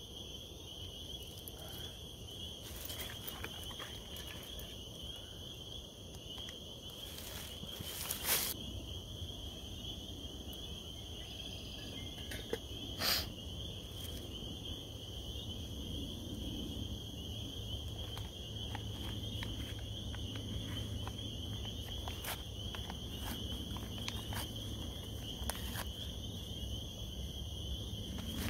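A backpacking stove burning steadily under a pot of water coming to the boil: a low rush that thickens in the second half. Over it runs a steady high-pitched trilling chorus of calling animals from the woods, with two sharp clicks about 8 and 13 seconds in.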